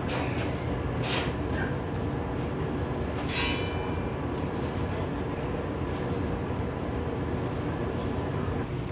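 Steady low rumble and hum of shipboard machinery and ventilation inside an aircraft carrier, with two brief sharp noises about one and three and a half seconds in.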